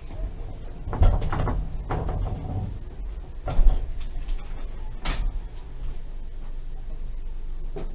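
Tram doors working, with a series of knocks and thuds, the loudest about three and a half seconds in and a short hiss-like burst just after five seconds, over the tram's steady low rumble.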